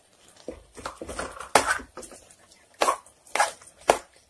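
Metal spoon stirring beef and chilli powder in a pressure cooker: a run of short scrapes and knocks against the pot, several of them a second or less apart.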